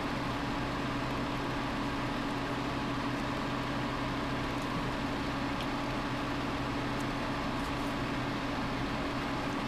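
Steady electrical or mechanical hum with hiss, unchanging throughout, with a few faint ticks.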